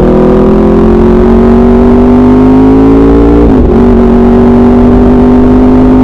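Motorcycle engine through an SC Project aftermarket exhaust pulling under acceleration, its note rising slowly, then dropping sharply about three and a half seconds in as it shifts up a gear and climbing again.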